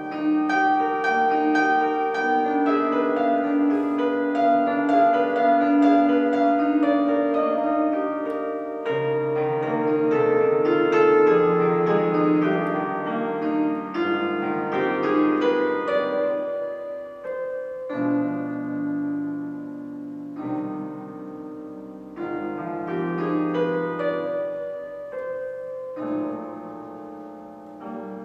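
Klavins Una Corda piano, an upright with one string per note, being played: held chords with a melody over them, new bass notes struck every few seconds.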